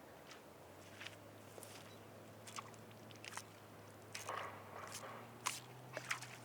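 Footsteps on wet grassy ground, an irregular run of soft crunching steps, over a faint steady low hum.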